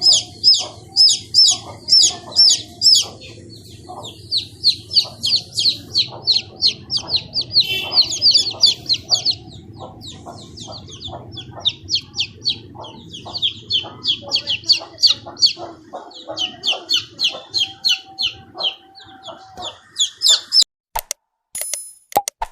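Chicks peeping: a rapid, continuous run of short, high, shrill peeps, several a second, over a low steady hum. The peeping stops shortly before the end, followed by a few sharp clicks.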